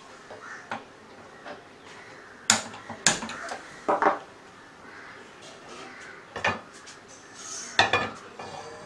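A hand-held gas lighter clicks twice, a little over two and three seconds in, to light a gas stove burner. An aluminium pressure cooker is then set down on the burner's metal pan supports with a few clanks near the end.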